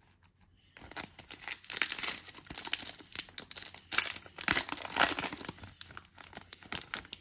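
A trading-card pack wrapper being torn open and crinkled. The sound starts about a second in and goes on as a dense, uneven crackle of handled wrapper for several seconds.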